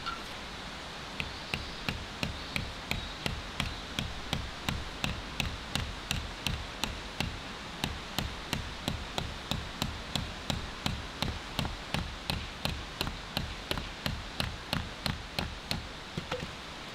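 Small hatchet head hammering a thin metal tarp peg into sandy ground: a steady run of sharp metallic taps, about three a second, starting about a second in and stopping near the end.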